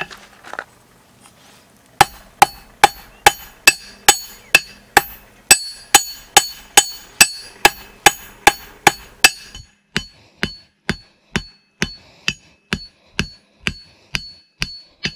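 Blacksmith's hammer striking a metal bar held in tongs on an anvil, steady blows about two to three a second with a bright ring after each, after a short pause near the start. From about ten seconds in the blows sound duller, with little ring.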